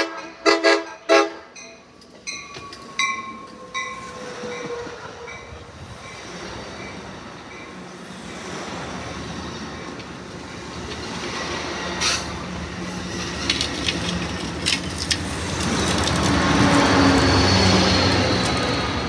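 Amtrak Pacific Surfliner train horn giving three short blasts, then the double-deck passenger cars rolling past with occasional sharp wheel clicks, the rumble growing louder until the diesel locomotive at the rear passes near the end.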